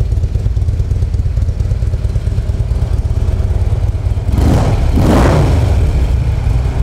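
A 2014 Harley-Davidson Street Glide Special's 103 cubic-inch V-twin idling through aftermarket slip-on mufflers with a deep rumble. The throttle is blipped twice a little past four seconds in, briefly raising the revs, before it settles back to idle.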